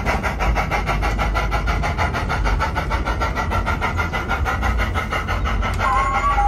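Sound unit of a battery-powered, radio-controlled 32mm gauge Ffestiniog 0-4-0 'Prince' model locomotive playing fast, evenly spaced steam-exhaust chuffs, about nine a second, over a low rumble of the wheels on the track. A short tone, rising slightly and then held, sounds near the end.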